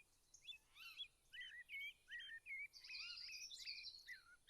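Small birds singing: a quick string of short chirped notes, with a higher, busier twittering joining in about three seconds in.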